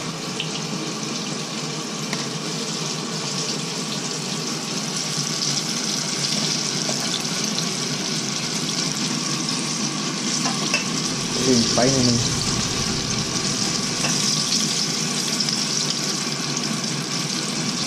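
Battered chicken pieces deep-frying in a pan of hot oil, giving a steady sizzling hiss. A brief voice is heard about two-thirds of the way through.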